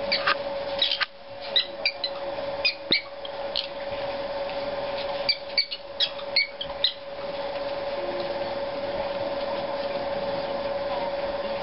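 Short, high squeaks and scuffling clicks from two prairie dogs wrestling, bunched in the first seven seconds, over a steady mechanical hum.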